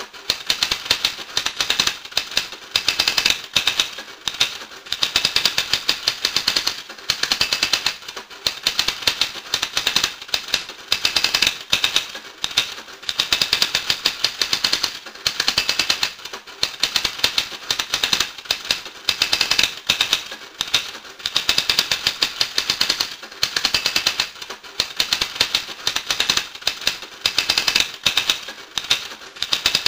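Dense, rapid mechanical clicking, close to typing, in runs a second or two long broken by brief pauses.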